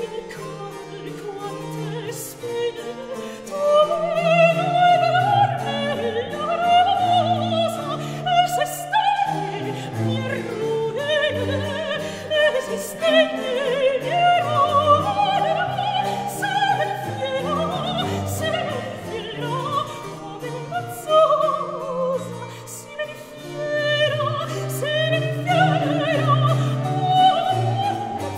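Background music: a classical operatic voice singing with vibrato over orchestral accompaniment.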